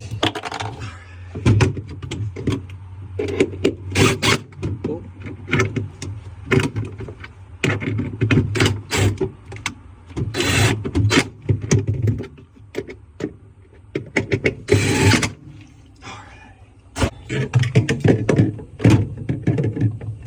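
Irregular clunks, knocks and rattles of plastic refrigerator parts being handled and fitted back in place, with a few short rustling noises. A steady low hum runs under the first half.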